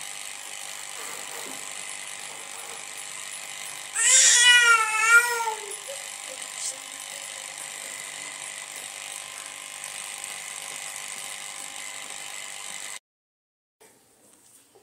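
A single high-pitched, wavering cry lasts about a second and a half, about four seconds in, over a steady background hiss. The hiss cuts off abruptly near the end.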